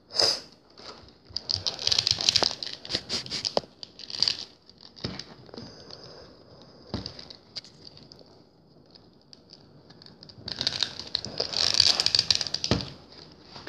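Hands pressing and fiddling with a plastic Master Chief action figure and its parts: clicks, scrapes and rustling in two busy stretches with a quieter few seconds between, as the figure is forced into a tight-fitting part.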